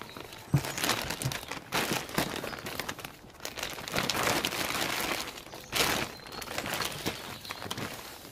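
Plastic bags rustling and crinkling in irregular bursts as hands rummage through a woven plastic carrier bag and lift out a clear plastic bag, with a single knock about half a second in.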